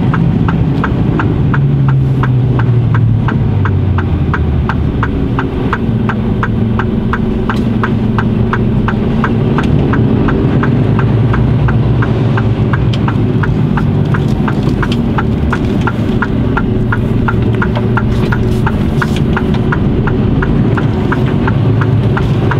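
Lorry's diesel engine running at low speed, heard from inside the cab, its pitch shifting slowly as the truck slows and turns. Over it, the turn-signal indicator ticks steadily and evenly throughout.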